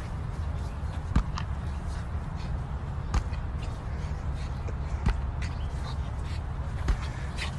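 Inflatable beach ball being knocked into the air again and again, a sharp hollow smack about every two seconds, over a steady low rumble.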